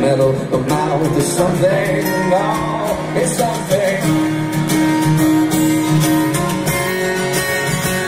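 Live acoustic band music: several strummed acoustic guitars with a singing voice over them. A single note is held for about two seconds around the middle.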